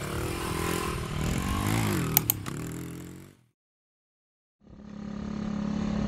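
A motorcycle engine revving up and dropping back, with two sharp clicks a little after two seconds in, then cut off. After about a second of silence, the Suzuki Birdie 50's small engine fades in, running steadily.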